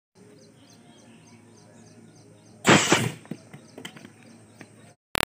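Plastic water-bottle rocket charged with hand-sanitizer vapour igniting and shooting off: one loud, short whoosh a little over two and a half seconds in, followed by a few light knocks. A brief sharp click near the end.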